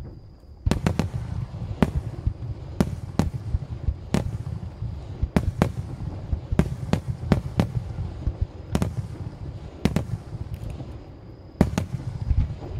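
Japanese aerial firework shells bursting in rapid succession: a dense run of sharp bangs starting about a second in, irregular and often in close pairs, each trailing off in an echo over a continuous low rumble.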